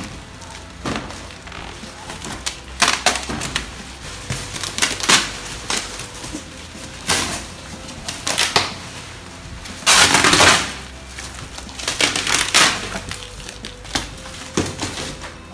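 Clear plastic wrap around a folded wire dog cage crinkling and rustling in irregular bursts as the cage is lifted and handled, the loudest burst about ten seconds in.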